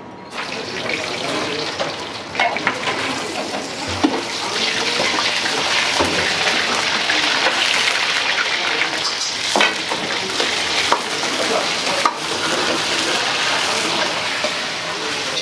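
Wok cooking on a commercial gas wok range: a loud, steady hiss from the burner and sizzling pan, with a metal ladle knocking against the wok several times.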